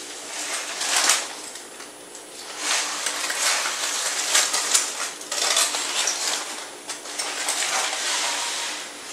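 Aluminium foil crinkling and rustling in bursts as a foil wrap is pulled open and peeled back off a cooked roast: a short burst about a second in, a long stretch through the middle, and another near the end.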